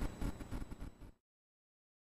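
Handling noise from an airsoft AK in its foam case and cardboard box: irregular soft knocks and rustling. It fades and cuts to dead silence just over a second in.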